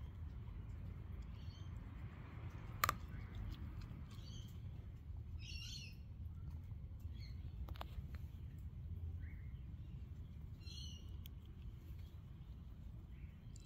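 A Finnish Lapphund puppy gnaws on a wooden stick. There is a sharp crack about three seconds in and a fainter one near eight seconds. Birds call in the background, most clearly around six and eleven seconds.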